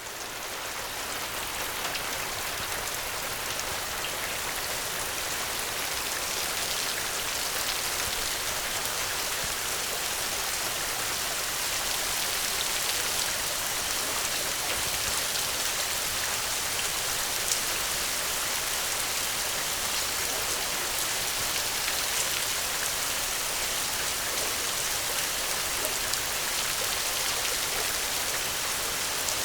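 Steady, dense rainfall, fading up over the first couple of seconds and then holding even, with a few faint sharp ticks.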